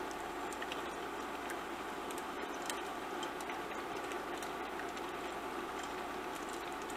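Bologna slices frying in hot oil in a stainless steel pan: a steady sizzle with small scattered crackling pops.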